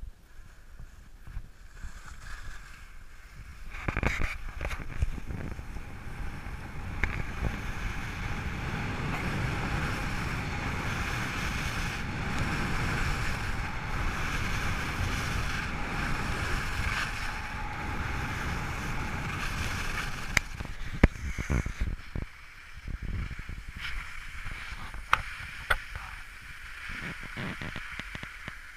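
Skis hissing and scraping over snow on a fast downhill giant slalom run, mixed with wind rushing over the action camera's microphone. The rush builds a few seconds in, holds steady, then thins near the end, with a few sharp knocks.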